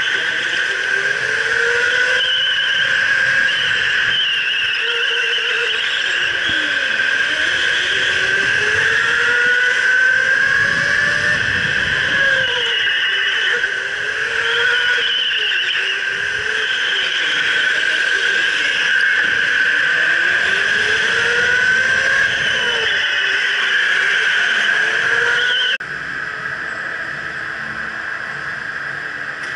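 Electric go-kart's motor whining, its pitch rising and falling over and over as the kart speeds up and slows through corners. About 26 seconds in it cuts off abruptly to a quieter steady hum.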